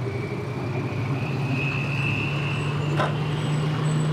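An engine running steadily with a low hum that creeps slightly up in pitch, along with a faint higher whine; a single short click sounds about three seconds in.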